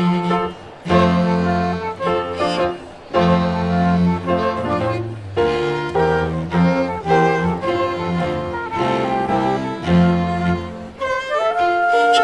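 Chamber ensemble of piano, flute, violin and cello playing a Christmas arrangement, with the bowed violin and cello to the fore. A long held high note comes in near the end.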